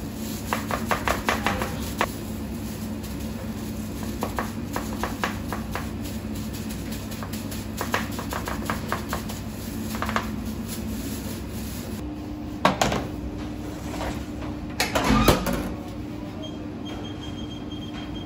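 Diced pizza toppings being scattered and pressed by hand onto dough in a metal baking tray: a patter of small taps over a steady machine hum. About twelve seconds in the background changes, and two loud knocks follow a couple of seconds apart.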